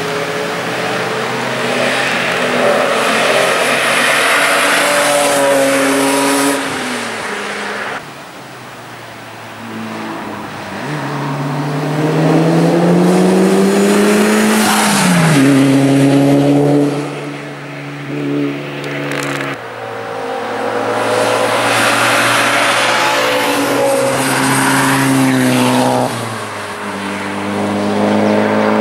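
Sports cars passing one after another at track speed. Each engine note climbs under acceleration and falls away as the car goes by, about four passes in all.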